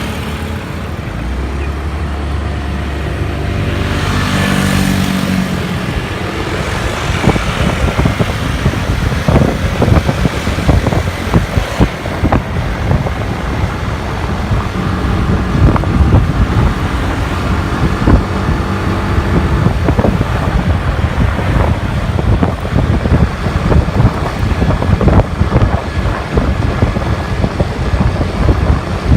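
A car on the road: the engine note climbs as it accelerates over the first few seconds. Then there is steady road and wind noise with gusty buffeting on the microphone.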